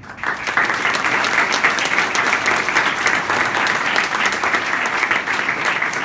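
A roomful of people applauding: dense clapping of many hands that starts suddenly and keeps up steadily.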